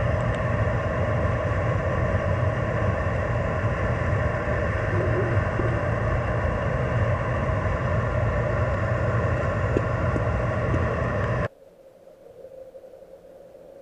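Steady mechanical drone, picked up by an underwater camera: a low hum with many held tones and a wash of noise. It cuts off suddenly about three-quarters of the way in, leaving a faint hiss.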